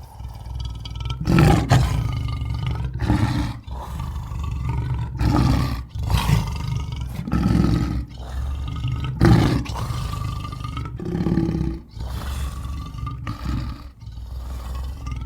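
Lion roaring and growling over and over: a string of deep calls, each a second or two long, with short breaks between them.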